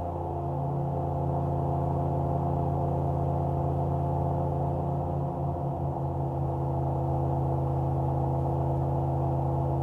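Searey amphibian's engine and pusher propeller droning steadily, heard from inside the cockpit on a low approach to a glassy-water landing. The pitch wavers briefly about halfway through.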